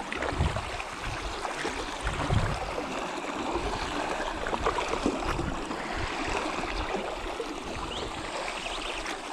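Water sloshing and trickling around a kayak paddled on a river, with a few light knocks.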